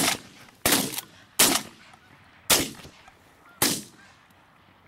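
Shotguns firing in a volley from several hunters: four sharp blasts spread over about three seconds, each dying away quickly.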